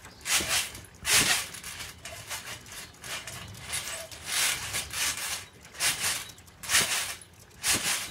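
Garden trampoline being bounced on: the mat and springs make a rustling, creaking burst with each bounce, about once a second. The bounces are weaker for a few seconds in the middle.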